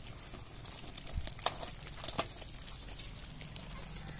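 A few faint, scattered clicks and knocks with a soft thump about a second in, from a large metal cooking pot being lifted off a wood fire and handled.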